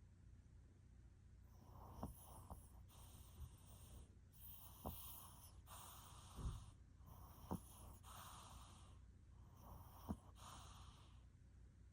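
An old dog snoring in its sleep: quiet, regular breaths that start about a second and a half in, with half a dozen short sharp clicks or snorts from its airway standing out above them.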